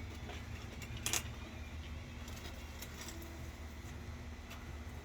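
Scattered light clinks and rattles, with one sharper click about a second in, over a steady low hum.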